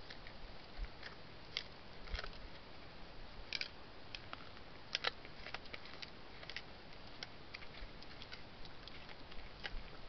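A deer chewing apples: irregular crunching clicks, a few of them louder, over a faint steady hiss.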